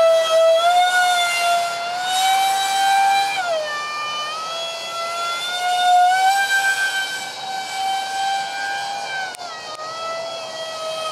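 Twin 5-blade electric ducted fans of a Freewing Su-35 RC jet screeching in flight, the whine stepping down about a third of the way in, back up around the middle and down again near the end as the throttle changes. The harsh, vibrating screech comes from cheap shaft adapters and fan mounts that have shaken loose.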